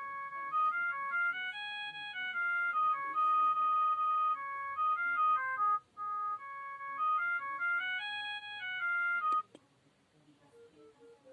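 myPhone Rumba mobile phone playing a ringtone through its speaker: a flute-like synthesized melody of short stepping notes that repeats its phrase. It cuts off with a click about nine seconds in, and a faint tune follows near the end.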